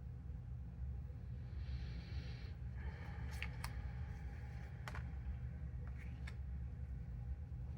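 Card-stock art prints being handled: a couple of short paper slides and a few light taps and clicks, over a steady low hum.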